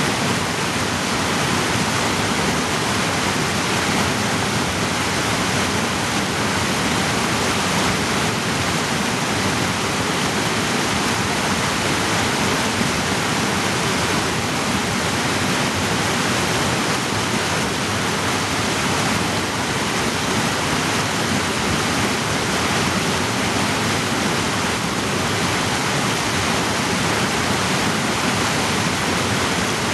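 Mountain creek cascading over boulders in a narrow rock gorge: loud, steady rushing of whitewater.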